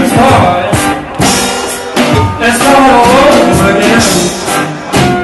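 Live band playing loudly: drum kit hits with cymbal, upright bass, and a sung vocal line over the instruments.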